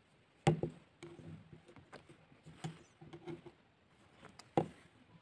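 Needle and embroidery thread being worked through a woven-wheel rose on fabric stretched taut in a wooden hoop: soft scratchy rustling, broken by two sharp knocks, about half a second in and near the end.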